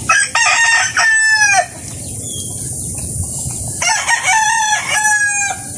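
A rooster crowing twice, one crow at the start and another about four seconds in, each ending with a falling tail, over a steady high hiss.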